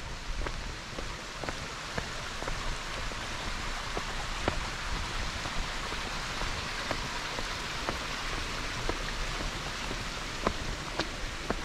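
Steady hiss of light rain falling on the forest and the path, with scattered faint taps of drops.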